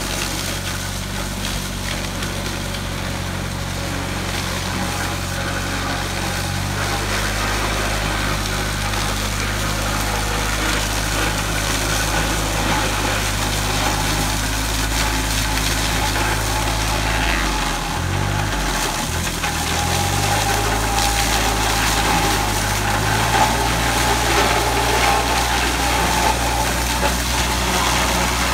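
Small tractor engine running steadily under load while its front-mounted sugarcane cutter pushes through and knocks down standing cane. A little past halfway the engine speed briefly drops and wavers, then recovers.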